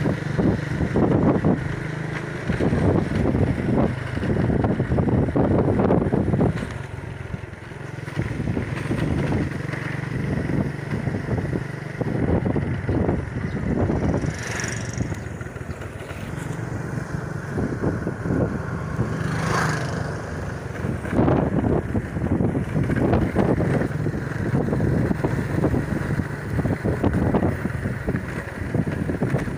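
Motorcycle engine running at riding speed, heard from on the bike, with gusty wind buffeting on the microphone and road noise from the rough surface.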